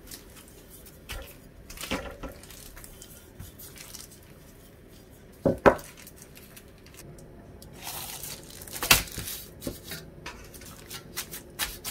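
A plastic freezer bag rustling and crinkling as the dough inside it is rolled flat with a wooden rolling pin and handled into a metal steamer tray, with two sharp knocks, one about halfway through and a louder one later.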